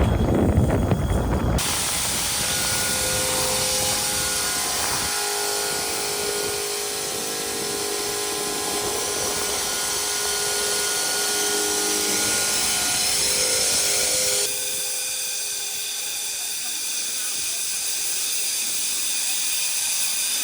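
Wind buffeting the microphone for about the first second and a half, then a grain vacuum running: a steady hissing rush of air and corn through the hose, with a faint steady hum under it.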